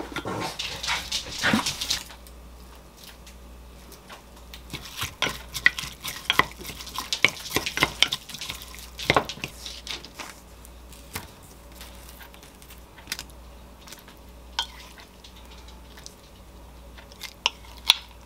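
A wooden spoon stirring a thick chopped-onion and mayonnaise sauce in a glass mug, scraping busily for about two seconds. Then a sheet of parchment paper crinkles and rustles for several seconds as it is spread flat, followed by a few scattered light taps.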